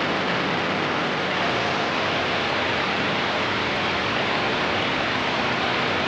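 Steady, even rush of a waterfall, with no change in level.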